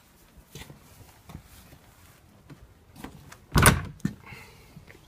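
Stable door banging shut about three and a half seconds in, followed by a couple of lighter knocks; faint scattered knocks before it.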